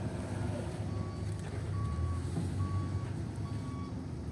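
Diesel generator running steadily with a low engine rumble, while an electronic alarm gives short, even beeps at one pitch, about one a second, starting about a second in.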